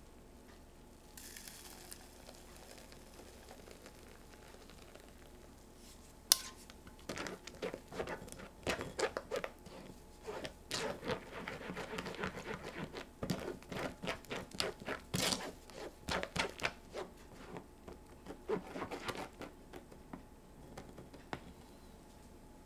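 A utensil scraping and pressing strawberry pulp through a fine metal mesh sieve over a glass bowl, in many quick irregular strokes. A single sharp clink about six seconds in, of utensil against the sieve or bowl, is the loudest sound.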